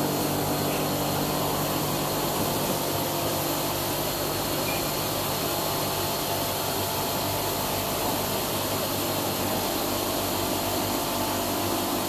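Steady hum and whir of machinery running without change, with several steady tones in it.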